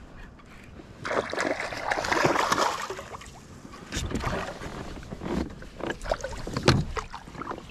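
A hooked bass splashing at the surface beside a fishing kayak as it is played in, then several sharp knocks as the landing net and gear bump the kayak's hull.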